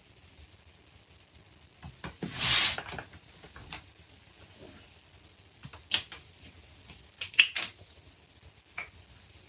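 A plastic spoon scraping and clicking against a plastic takeout bowl while eating: a longer scrape about two seconds in, then scattered sharp clicks in the second half.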